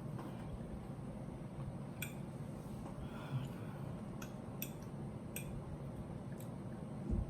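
Quiet eating sounds: about five light clicks of cutlery against a plate and soft chewing, over a steady low hum, with a dull thump near the end.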